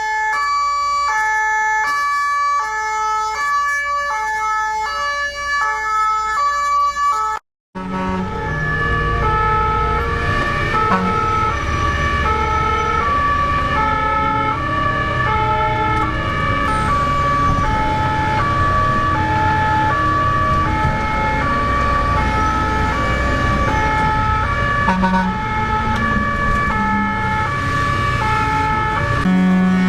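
Swiss fire truck's two-tone siren, alternating steadily between a high and a low note. It breaks off briefly about seven seconds in, then carries on with engine and road noise underneath.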